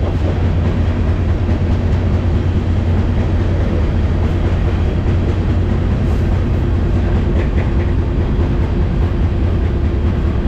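Union Pacific freight train rolling along: a steady, loud rumble with a low drone and a faint steady whine above it.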